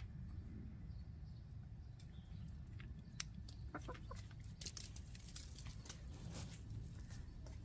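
Backyard hens clucking softly as they forage, with a run of short, sharp clicks from about halfway through, over a steady low rumble.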